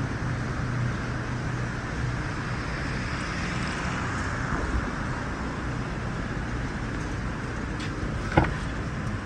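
Steady low hum and hiss of background noise, with one short sharp click about eight seconds in.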